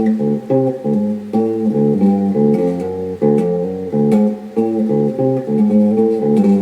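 Guitar with its low E string tuned down to D, playing a single-note riff on that string: the open low D alternating with short fretted notes and slides, repeated without a break.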